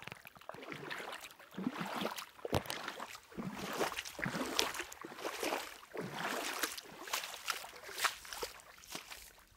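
Shallow water splashing and sloshing in irregular bursts, with a few sharp clicks.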